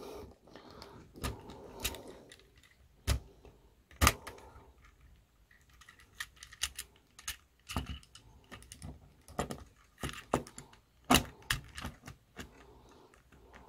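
Hard plastic parts of a Papa Toys Grapple transforming robot figure clicking and rattling as they are worked by hand during transformation, an uneven scatter of sharp clicks with louder ones about four and eleven seconds in.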